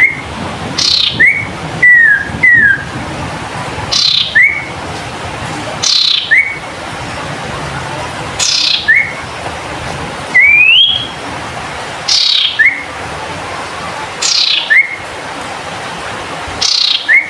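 Common iora (Aegithina tiphia) singing loudly, repeating a short phrase about every two seconds. Each phrase is a high note falling in pitch, followed by a short clear whistle that bends up sharply.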